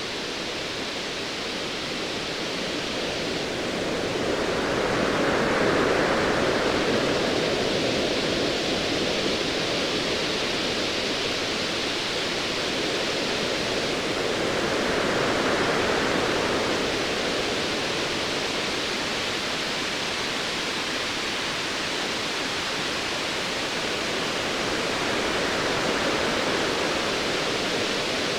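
Ocean waves washing in a continuous hiss that swells and eases three times, roughly every ten seconds.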